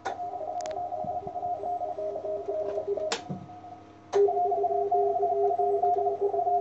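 Morse code (CW) signals from a ham radio receiver: two stations beep at different pitches at once, a higher and a lower pattern of rapid on-off tones overlapping over a faint hum. A few sharp clicks break in, and after the last one, about four seconds in, the signals are louder.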